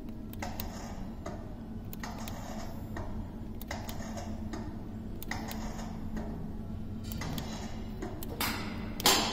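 Repeated metal clicks and short rattles, about one or two a second, as a diesel locomotive engine's turbocharger is worked into place on its mounting bracket, over a steady workshop hum. The clicks grow louder near the end.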